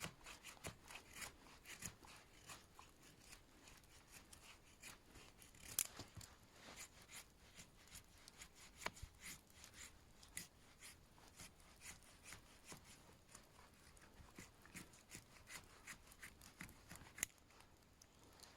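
Knife blade shaving curls off a wooden stick to carve a feather stick: a run of faint short scraping strokes, about two a second, a few of them louder.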